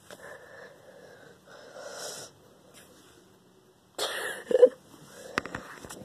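Breathy huffs and rustling close to a phone microphone as it is handled. A louder rustle comes about four seconds in, and a few sharp knocks follow near the end.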